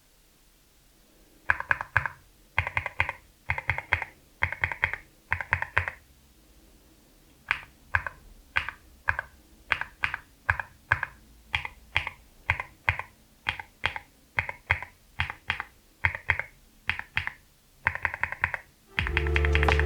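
Keys typed on a Meletrix Zoom75 mechanical keyboard with linear switches, each press a short clack. First come quick flurries of keystrokes, then after a short pause single keystrokes at about two a second. Music comes in near the end.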